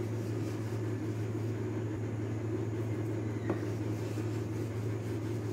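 A steady low mechanical hum, like a fan or electrical appliance running, with one short click about three and a half seconds in.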